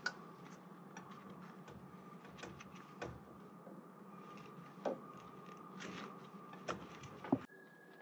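Plastic multi-pin wire connector plug being handled and worked loose on a heat pump's compressor wiring: a few sharp clicks and rattles over a steady low hum. The loudest click comes near the end, and the background hum changes abruptly just after it.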